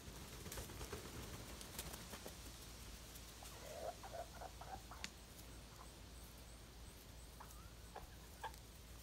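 Backyard chickens clucking faintly: a quick run of about five short clucks a few seconds in and a few more near the end. Faint clicks and rustles come first.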